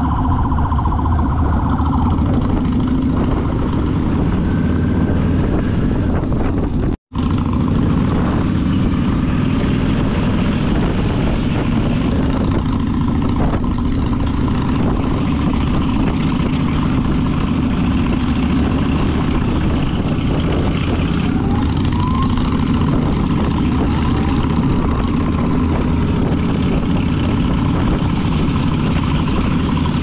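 Motorcycle running steadily at riding speed, its engine drone mixed with heavy wind rush on the microphone. The sound cuts out completely for an instant about seven seconds in.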